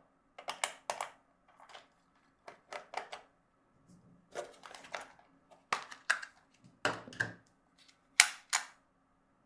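Irregular clicks, taps and short rustles of plastic toy parts and packaging being handled, about a dozen spread unevenly, the sharpest near the end, over a faint steady hum.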